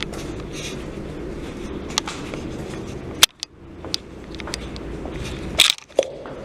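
Footsteps and knocks from a carried camera over a steady low background rumble. There are sharp clicks a couple of times, and the sound cuts out briefly a little after three seconds in and again just before six seconds.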